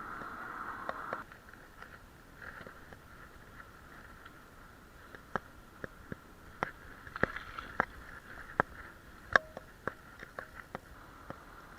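Bicycle being ridden on a road, rattling with a dozen or so irregular sharp clicks and knocks over a faint steady hiss; the hiss drops about a second in.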